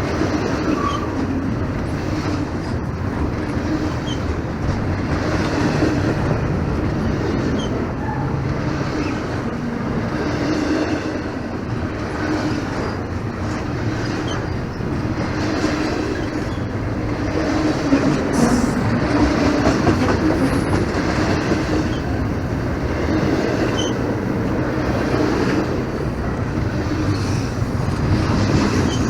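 Norfolk Southern freight train's cars rolling steadily past, a continuous rumble with wheels clicking over the rail joints.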